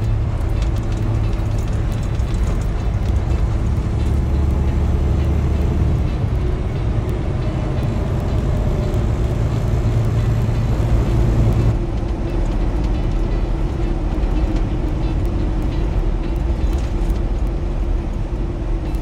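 Semi truck's engine and road noise heard inside the cab at highway speed: a steady drone whose low tones shift about twelve seconds in.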